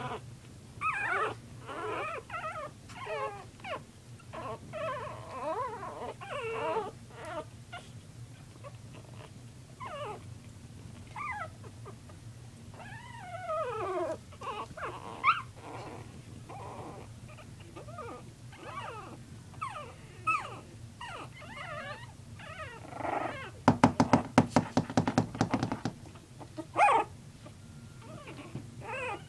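Three-week-old puppies playing, giving a string of short, high whimpers and squeaky yelps that slide up and down in pitch. About two-thirds of the way through, a loud rapid run of clicks lasts about two seconds.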